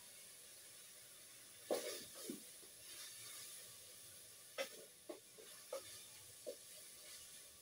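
Cookware and utensils being handled at a cooking pot: a handful of scattered knocks and clinks, the loudest about two seconds in, over a faint steady hiss.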